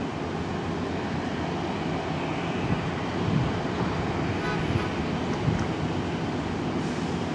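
Jet engines of a four-engine Airbus A340 idling as it taxis, heard as a steady low rumble with a faint hum.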